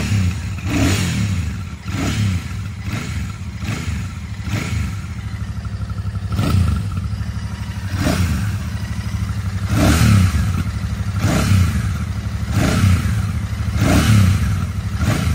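Royal Enfield Shotgun 650's 648 cc parallel-twin engine idling through its stock exhaust, with about a dozen short throttle blips a second or two apart, each a quick rise and fall in revs. The exhaust note is deep and thumpy.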